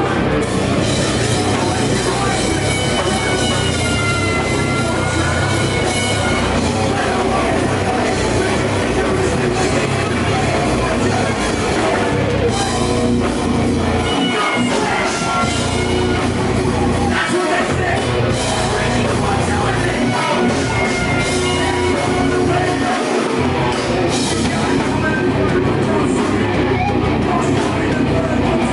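Rock band playing live, loud and steady: electric guitar and drum kit, with a singer's voice over them at times.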